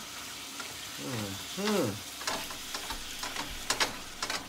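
Ground beef sizzling as it browns in a hot skillet, stirred with a metal utensil that clicks and scrapes against the pan several times in the second half. A short hummed voice sound comes about a second in.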